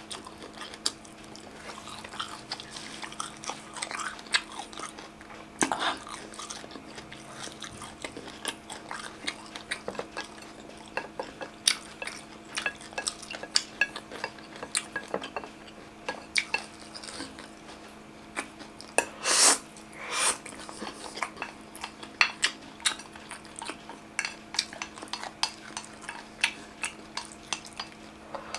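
Close-miked eating: chewing and biting mixed with many sharp clicks and clinks of chopsticks and a bamboo skewer against glass and ceramic dishes, over a faint steady hum.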